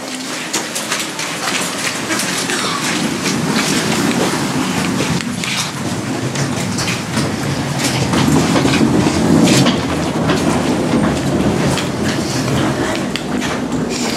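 Steady rumble with irregular clicks and clatter as people walk with bags through an automatic revolving door. The rumble swells about two-thirds of the way through.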